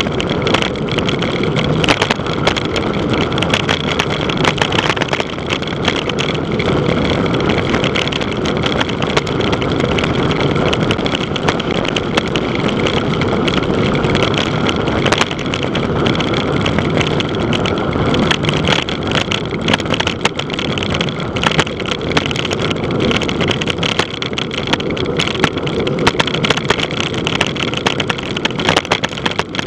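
Steady wind rush over the microphone of a camera on a moving bicycle, with frequent small rattling clicks from the bike and mount over the road.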